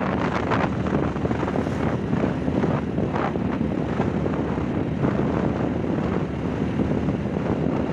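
Steady rush of wind buffeting the microphone while riding a motorcycle, with the bike's engine running evenly underneath at cruising speed.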